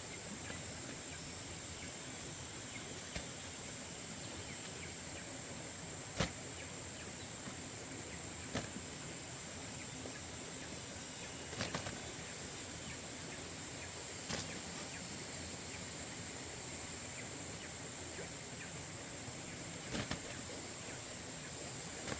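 A steady high-pitched hiss over a low background, broken by a handful of short sharp clicks or knocks. The loudest knock comes about six seconds in, with others at irregular intervals.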